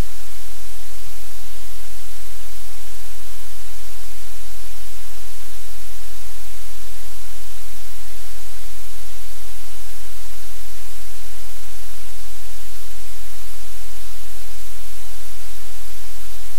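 Loud, steady hiss like static, with a low hum underneath, unchanging throughout.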